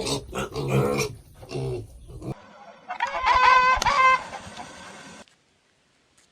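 Animal calls from two spliced clips: a run of low, pitched calls that cuts off abruptly, then after a short gap a higher-pitched call lasting about two seconds that also stops suddenly.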